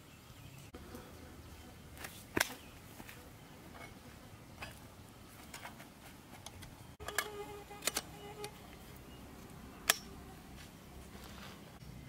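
Metal tubes of a folding camping table frame clinking and knocking as it is set up, a few sharp separate clicks, with a cluster about two-thirds of the way through that rings briefly.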